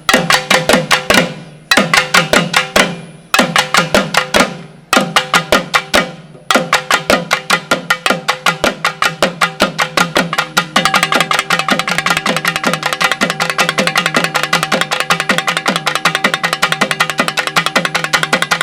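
Naiyandi melam drumming: sharp, rapid drum strokes in short phrases with brief pauses between them. About six seconds in the playing becomes continuous, and from about eleven seconds in it grows faster and denser.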